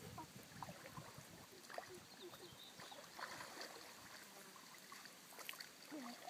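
Faint sloshing and light splashing of shallow pond water as a Tibetan mastiff puppy and a person wade through it, with a few scattered small ticks.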